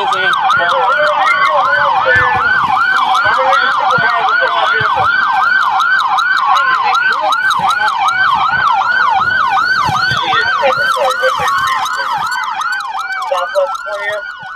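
Police siren in fast yelp mode, sweeping up and down about three to four times a second, with a second siren slowly wailing down and back up near the end.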